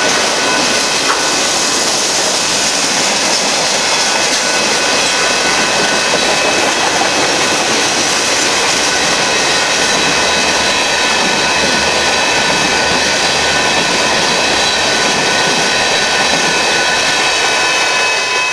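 Freight cars of a Union Pacific manifest train rolling past at speed: a loud, steady roar of steel wheels on rail, with a few steady high-pitched tones running through it and one brief click about a second in.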